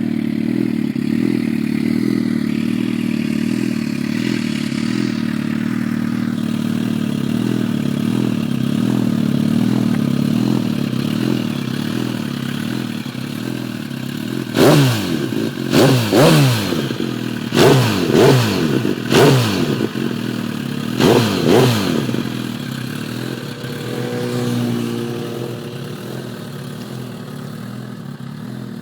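A 2009 Suzuki GSX-R1000's inline-four engine idling steadily. About halfway through, it is revved about eight times in quick throttle blips, some in pairs, each rising sharply and falling back, then it settles to idle again.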